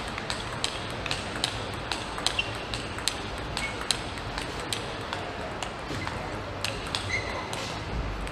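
Table tennis balls clicking off bats and tables in an irregular run of sharp ticks, several a second, over the low hum of an arena hall; a short squeak about seven seconds in.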